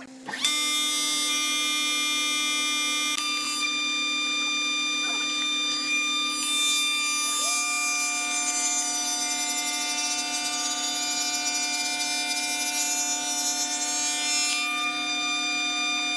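Spindle moulder (wood shaper) switched on about half a second in, coming up to a steady high whine with several pitches together. From about six seconds in until near the end a hardwood board is fed along the fence past the spinning cutter, adding a rougher cutting noise, and then the machine runs on freely.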